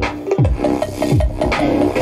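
Hip-hop beat with deep bass notes that slide down in pitch several times, over sustained synth notes.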